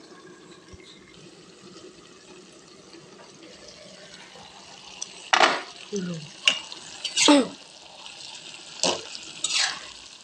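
Stew simmering faintly under an aluminium pot lid. About five seconds in, the lid and pan clatter, then a metal spoon or spatula knocks and scrapes in the aluminium pan as the bamboo shoots are stirred, several sharp clinks in a few seconds.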